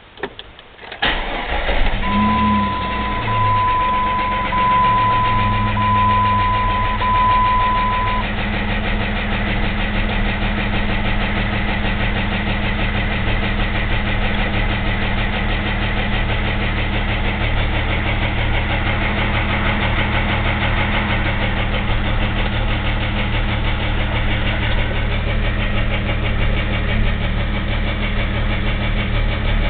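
A 2001 Jeep Grand Cherokee's 4.0-litre inline-six starts about a second in and settles into a steady idle, with a knocking noise that came on suddenly and that the owner suspects is piston slap or rod knock. An electronic beep repeats for about six seconds just after the start.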